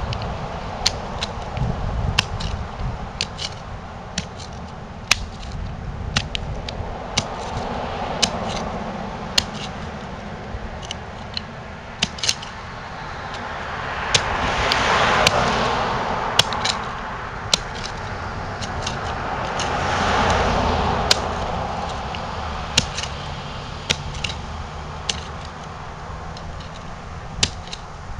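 Two vehicles pass by on a road, one about halfway through and one about two-thirds in, each rising and falling over a few seconds above a low rumble. Sharp irregular clicks and knocks are heard throughout.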